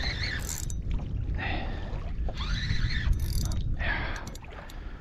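Kayak on open water with wind on the microphone, a steady low rumble, and four short higher rushing sounds about a second apart.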